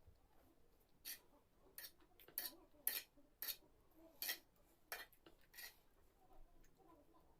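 Eating utensils clinking against a dish: about nine short, faint clicks, irregularly spaced, over roughly five seconds.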